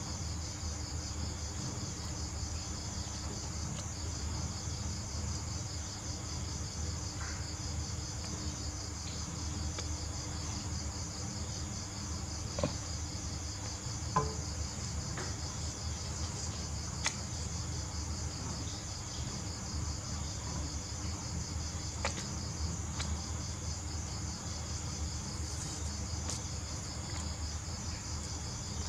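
Steady, high-pitched pulsing trill of insects such as crickets, over a low hum. A few light taps from paper being handled, around the middle.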